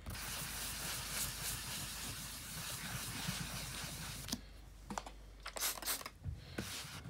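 Hand wet-sanding of a cured UV resin finish on walnut with a 1500-grit sanding sponge: a steady scratchy scrubbing for about four seconds. Then the sponge lifts off and only a few light clicks and knocks follow.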